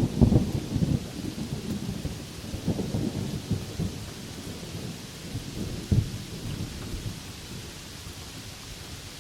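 Thunder rumbling over steady rain. The crackling rumble is loudest at the start and dies away, with one more sharp crack about six seconds in, leaving the even hiss of the rain.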